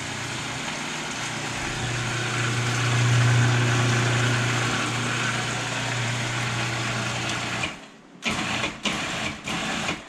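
Electric food processor motor running steadily while pureeing cooking liquid with carrots, onions and tomato into a sauce. It stops just before the end, then runs again in three short pulses.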